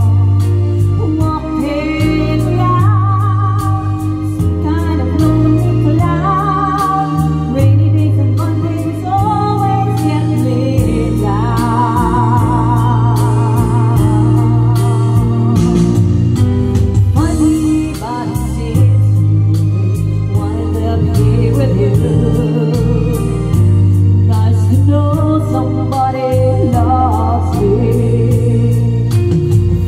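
Music: a singer's voice, with vibrato, over sustained keyboard chords and a steady beat.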